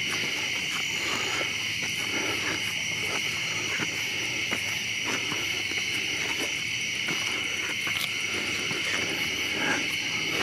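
Steady chorus of crickets trilling, with scattered soft footsteps on the stone steps as they are climbed.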